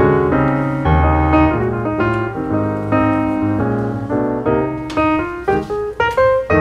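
Background piano music: chords over a bass line with a melody moving above.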